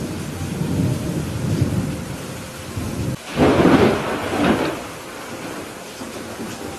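Thunderstorm: steady rain with thunder rumbling low, then a louder, sharper thunderclap about halfway through that dies away over a second or two.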